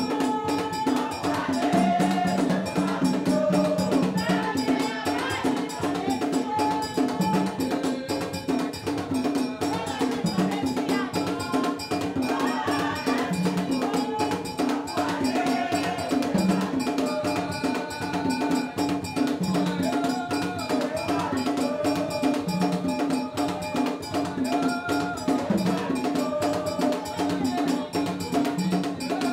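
Haitian vodou ceremonial drumming: hand drums and a struck metal bell keep a fast, steady rhythm, with voices singing long held lines over it.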